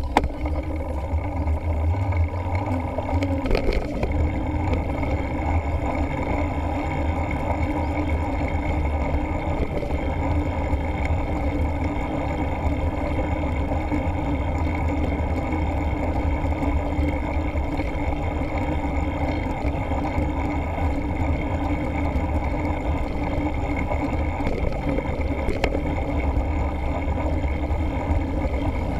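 Steady wind rush buffeting the camera microphone, with the tyre and road rumble of a mountain bike being ridden along a paved road. There is a sharp knock a few seconds in and another near the end.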